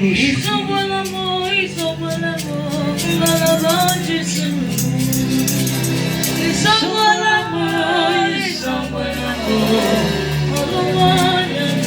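Gospel worship music: a singer's voice drawing out long, wavering notes over sustained keyboard chords and bass, with light percussion ticking along.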